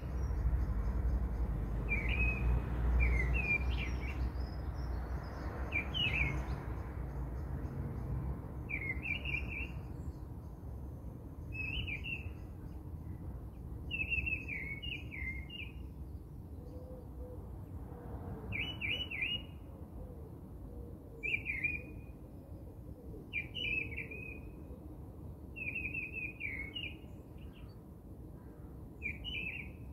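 A small bird chirping short phrases about every two seconds, over a low rumble that fades over the first several seconds.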